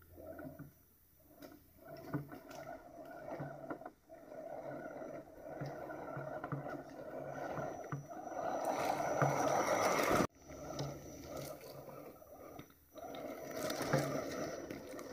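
Axial SCX10 1/10-scale RC rock crawler's electric drivetrain whining as it crawls over river-bed stones, with the tyres crunching and scraping on the rocks. It grows louder as the truck nears, cuts off suddenly about ten seconds in, then builds again near the end as the truck passes close.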